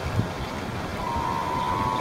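Water washing and splashing against the hull of an RC model tugboat, heard at the waterline with wind on the microphone. About a second in, a steady high whine from a small motor comes in and holds.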